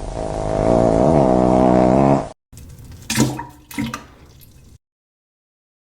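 Fart sound effect: a loud, pitched, wavering blast that cuts off about two seconds in, followed by a quieter stretch with two sharp sudden sounds, then silence for the last second.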